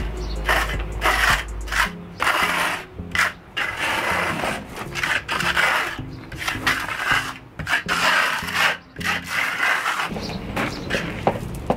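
Flat trowel scraping and smearing wet cement mortar over fiberglass mesh on cement board, in repeated strokes about one a second, embedding the mesh to waterproof the board joints.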